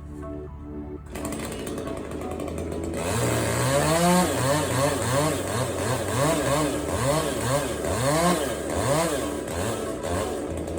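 Chainsaw running, then from about three seconds in revving up and down over and over, roughly one and a half revs a second.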